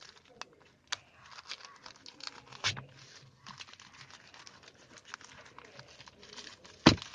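Packaging crinkling and tearing as a sealed package is cut open with a knife, with scattered small clicks and one sharp, loud snap near the end.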